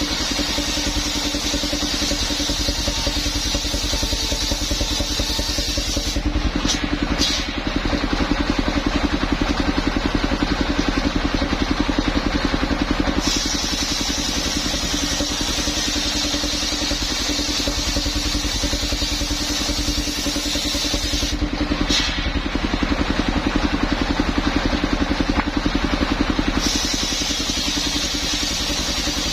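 Engine of a portable circular sawmill rig running steadily as it saws a coconut palm trunk into rafters. Its sound changes twice, for several seconds each time, when the high hiss drops away.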